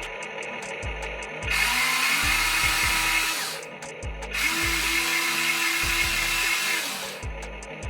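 Electric motors and plastic gearboxes of a 1/14-scale RC excavator whining as it is driven, in two runs of about two seconds each: one starting a second and a half in, the other near the middle.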